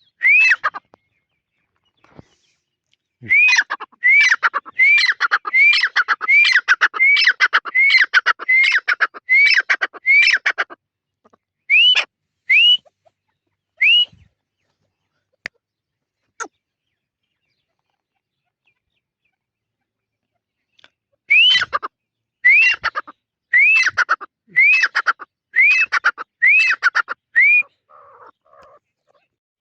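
Grey francolin (teetar) calling: a run of loud, sharp, rising-then-falling whistled notes, about two a second, then a few single notes, a pause of several seconds, and another run near the end.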